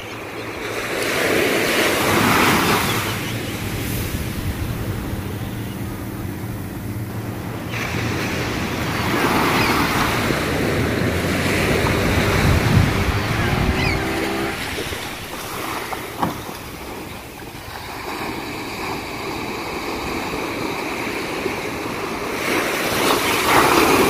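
Sea waves breaking and washing up on a beach, the surf swelling and fading in slow surges, loudest about two seconds in, around the middle and again near the end.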